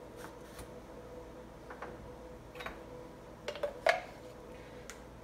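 A few light, scattered clicks and clinks of kitchen utensils being handled, the loudest about four seconds in, over a faint steady hum.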